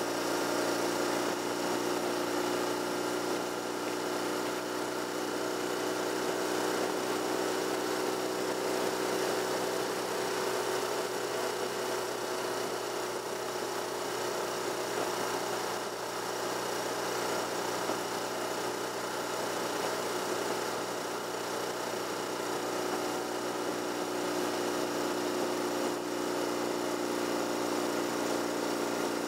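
Vehicle cruising at a steady speed: an even engine hum with road noise, holding steady throughout with a slight dip about halfway.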